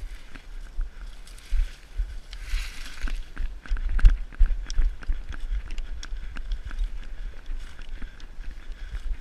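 Footsteps of someone walking over stony ground through scrub, with dull irregular thumps and small crunches, and brush rustling against clothing; a longer rustle comes about two and a half seconds in.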